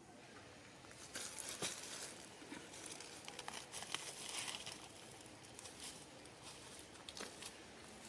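Faint rustling and crackling with scattered light clicks, busiest in the first half, as a mother macaque and her newborn shift against each other's fur.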